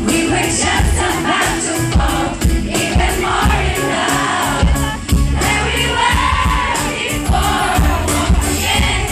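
Live pop music with a steady heavy drum and bass beat and a lead vocal, with a crowd singing along.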